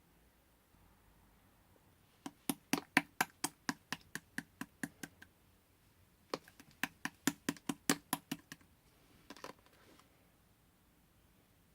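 Pink slime being squeezed and kneaded by hand, giving off sharp clicking pops about four times a second in two runs, then a few fainter clicks near the end.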